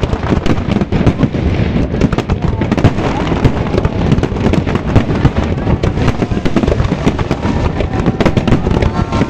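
Fireworks display going off: a dense, continuous run of crackles and bangs from many bursts overlapping.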